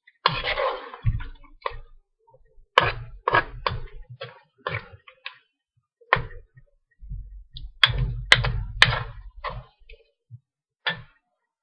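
Metal spoon stirring food in a steel wok, scraping and knocking against the pan in irregular strokes, with a busier run of knocks about eight seconds in.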